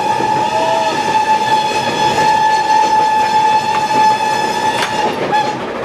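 Steam locomotive whistle held in one long steady blast, cutting off about five seconds in and followed by a short toot, over the running noise of the train at speed, heard from inside a carriage. A sharp knock comes just before the long blast ends.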